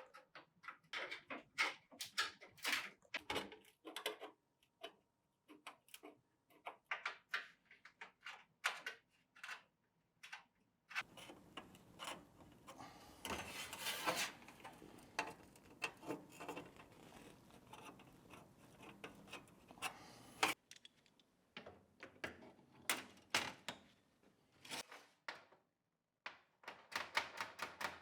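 Hand tools working sheet steel: irregular metallic taps and knocks, with a stretch of steady noise under the knocks in the middle, and a fast, even run of hammer strikes near the end, as when a flange is hammered over a dolly.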